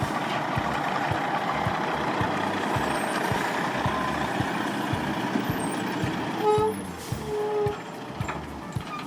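Heavy timber truck engine running steadily. About six and a half seconds in, the sound drops, and a few short tones sound.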